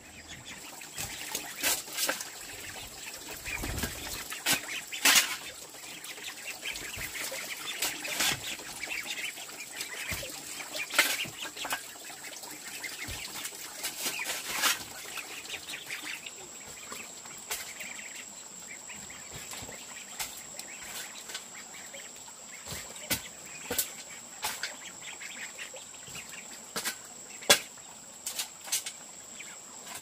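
Sharp knocks and clicks at irregular intervals, the loudest near five seconds in and near the end, over farm birds such as ducks calling and a steady high-pitched tone.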